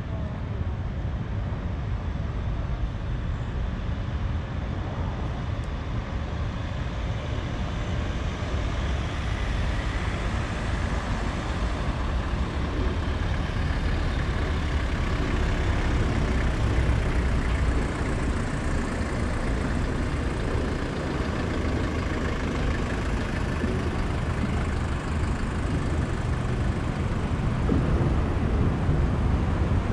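Road traffic on a city street: a line of hearses and cars driving past at low speed, engine and tyre noise in a steady wash that grows louder partway through as the vehicles come near.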